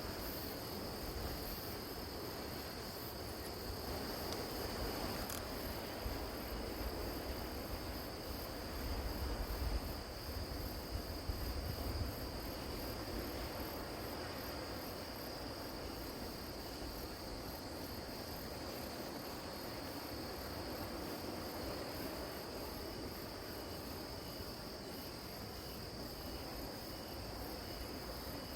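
Crickets chirping without pause: one steady high trill, with a second, faster pulsing chirp above it. A low rumble underneath swells a little in the first half.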